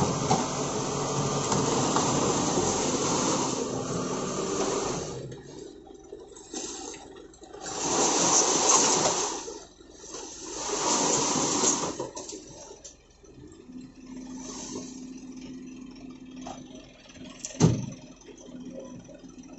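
Excavator at work loading sand-and-gravel fill: a loud rushing noise for the first five seconds and again in two swells about eight and eleven seconds in, then a quieter steady engine hum with one sharp knock near the end.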